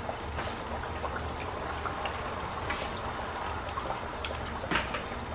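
Floured chicken deep-frying in hot oil in a pan: a steady sizzle with scattered pops and crackles, one louder pop near the end.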